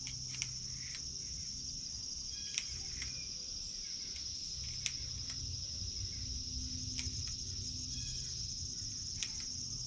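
Crickets chirping in a steady high-pitched trill, with about seven small sharp clicks spread irregularly through it, typical of handling and loading a .22 rifle's cartridges.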